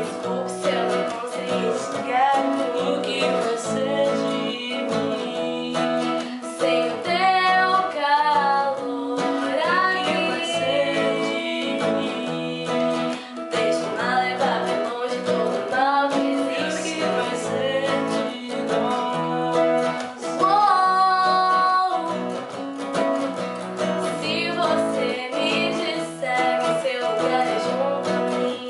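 A woman singing a slow song, accompanied by acoustic guitar and keyboard, with a wavering vibrato on her held notes.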